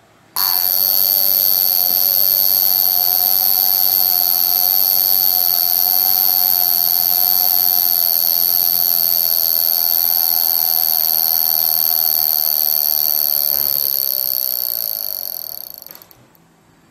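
A Vulcain Cricket mechanical alarm wristwatch's alarm going off: a loud, steady, high-pitched buzz from the alarm hammer vibrating against the membrane in the caseback. It starts about half a second in, holds for about thirteen seconds, then fades out near the end.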